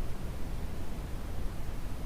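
Brown noise: a steady, even rushing hiss weighted toward the low end, with no changes or events.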